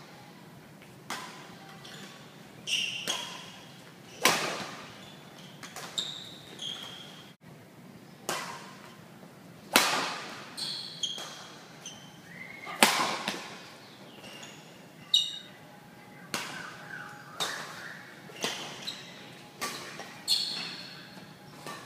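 Badminton rackets striking a shuttlecock in a rally, a sharp echoing hit about every second, with short high squeaks between some of the hits.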